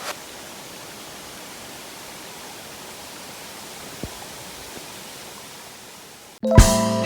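Steady rushing of a waterfall. Strummed acoustic guitar music comes in suddenly near the end.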